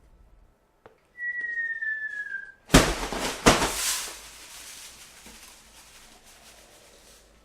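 Home-made sound effect of a cannon shot: a whistled tone falling slowly in pitch, like an incoming shell, then two sudden loud blasts for the explosion that die away into a fading hiss.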